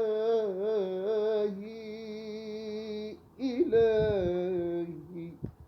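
A man's solo voice chanting an Islamic ibtihal, holding long melismatic notes with a wavering, ornamented pitch. The note breaks off about three seconds in, and after a short breath a second long note slowly falls and fades out near the end.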